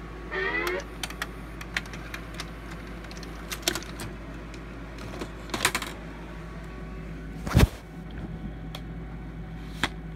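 Scattered clicks and knocks of handling over a steady low electrical hum from the VCR and television, with a brief rising whir near the start. The loudest knock comes about seven and a half seconds in.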